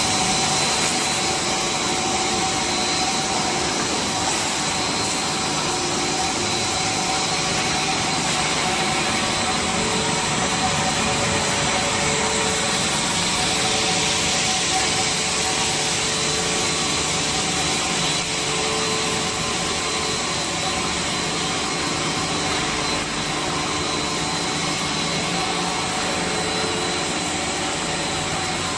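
Pulley-type straight-line wire drawing machine running, drawing wire over its capstans: a steady, even mechanical rush with a constant high whine.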